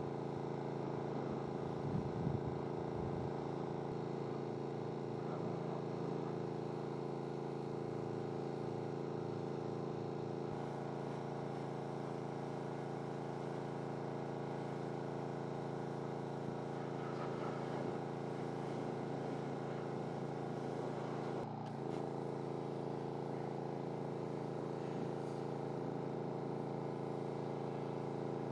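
An engine running steadily at a constant speed, with a momentary dip in level a little over twenty seconds in.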